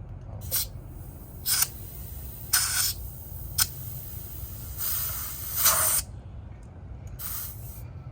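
Compressed air hissing in six short bursts at a tire's valve stem as the tire is aired up, the longest burst about five seconds in.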